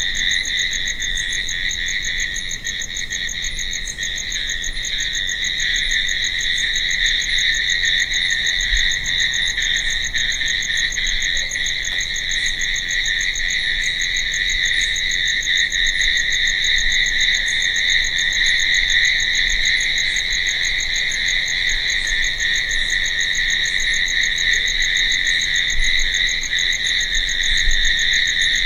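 A chorus of crickets chirping steadily in a continuous high trill, with no breaks.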